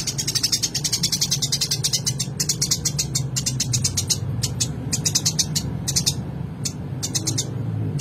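Eurasian tree sparrow chirping in rapid runs of short, high chirps, several a second, broken by brief pauses. A steady low hum runs underneath.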